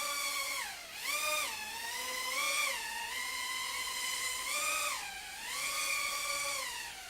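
Furibee X140 quadcopter's motors and propellers whining, the pitch rising and falling again and again as the throttle changes.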